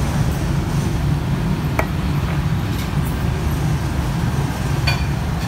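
Steady road traffic rumble, low and continuous, with a couple of light clicks about two and five seconds in.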